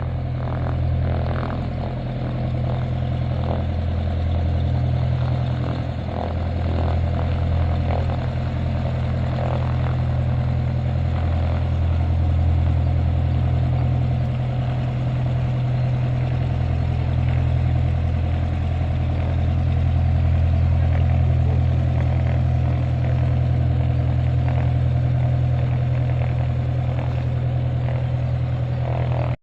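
Engine running steadily at one speed: a loud, low drone with a few steady hum tones above it.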